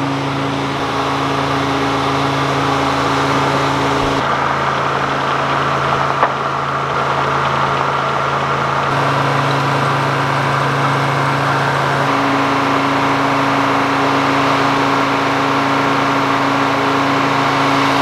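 Detroit Diesel engine running steadily, powering a sawmill's circular saw and carriage; a single sharp knock about six seconds in.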